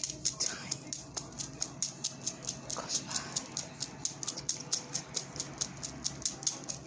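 Clock ticking steadily and quickly, about five ticks a second.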